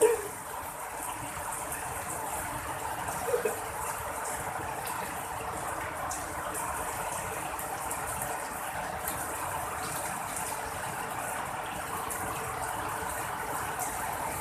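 Steady rain falling, an even hiss with a small brief sound about three seconds in.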